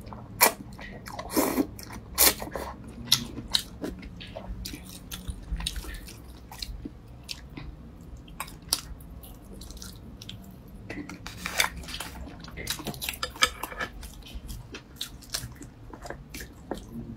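Close-up eating sounds: zhajiangmian noodles slurped in a quick run of loud wet slurps in the first few seconds, then chewing with scattered mouth clicks and smacks, with another busy stretch of slurps and smacks a little past the middle.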